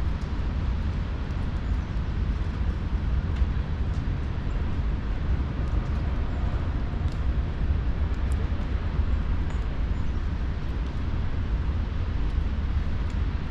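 Steady low outdoor rumble with a few faint, short bird chirps near the end.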